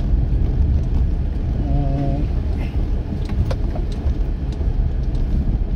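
Car driving along a rough unpaved road, heard from inside the cabin: a steady low rumble of engine and tyres, with a few light knocks and rattles about three seconds in. A brief hum of a man's voice comes about two seconds in.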